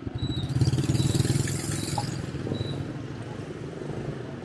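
Motor scooter engine passing close, loudest about a second in and then fading, with other scooter traffic running steadily behind it. A short high beep repeats a little faster than once a second through the first half.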